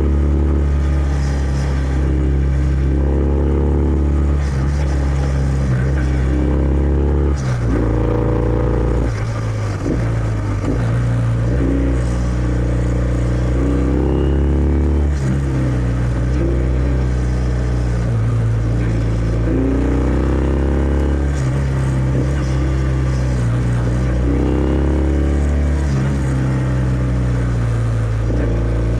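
Kawasaki W650's air-cooled parallel-twin engine running through its stock exhaust while riding. The engine note repeatedly rises as it pulls and then drops back, with a brief dip a little after seven seconds.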